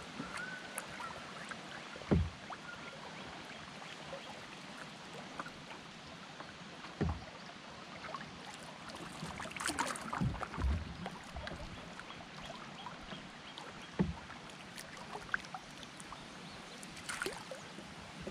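Water swishing and lapping along a canoe's hull on a moving river, broken by several sharp low knocks on the hull and a couple of splashes.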